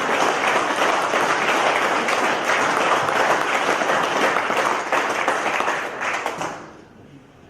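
Rally audience applauding: dense, steady clapping that dies away about six seconds in.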